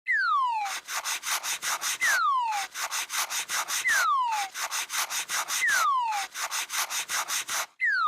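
Cartoon sound effect repeating about every two seconds: a falling whistle-like tone over a fast scratchy rattle of about eight strokes a second.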